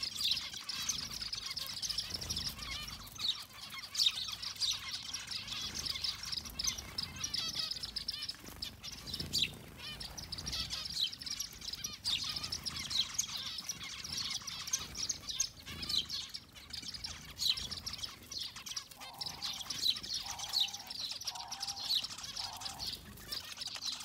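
A flock of zebra finches chirping busily at a feeding tray, many short high calls overlapping without a break. A run of about four lower notes sounds about three-quarters of the way through.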